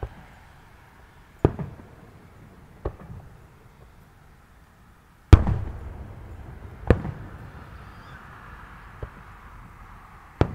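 Aerial firework shells bursting: about six sharp booms a second or two apart, the loudest a little past halfway, each trailing off in a rumbling echo.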